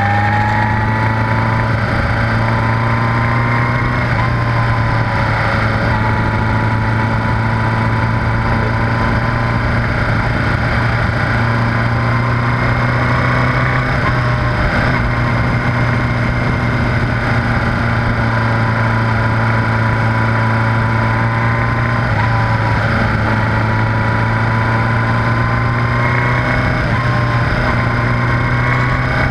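1978 Honda GoldWing GL1000's flat-four engine running steadily while the bike is ridden along the road, its note dipping and recovering slightly a few times as the speed changes.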